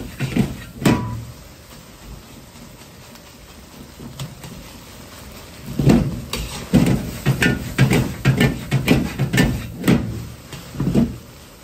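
Metal ladle clanking against a large wok while stir-frying fried rice: a quick run of clanks in the first second, a quieter stretch, then repeated knocks of the ladle on the wok, about three a second, from about six seconds in until near the end.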